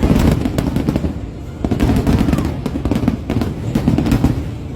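Fireworks going off in quick succession: deep booming shell bursts with many sharp crackles, swelling in waves. Music plays underneath.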